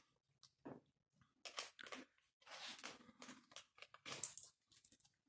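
Faint, irregular crinkling and rustling of packaging with small clicks, as a tool cabinet's drawers are gone through.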